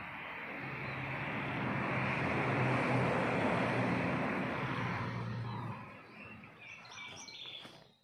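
A motor vehicle passing by, its engine hum and noise swelling to a peak about three seconds in and fading away by about six seconds; birds chirp near the end.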